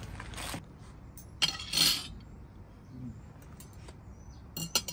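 Tableware being handled: a few sharp clinks and knocks of glasses and dishes being set down, with a short scraping rustle about two seconds in and a quick run of clinks near the end.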